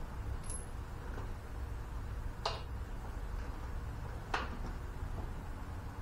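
Two sharp metallic clicks, about two seconds apart, from hand work on metal parts at a lawn tractor's jacked-up wheel, over a low steady hum.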